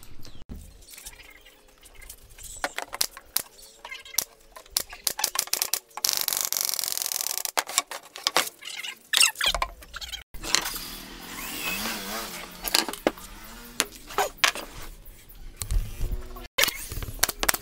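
Plywood panels being handled on a wooden workbench: scattered knocks, taps and scrapes of wood on wood, with a few seconds of steady hiss around the middle.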